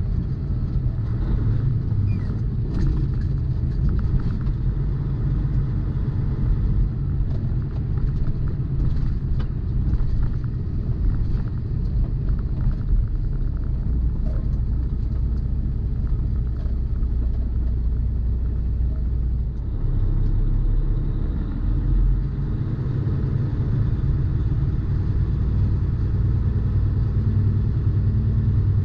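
Semi truck driving, heard from inside the cab: a steady low engine and road rumble, with faint light ticks now and then.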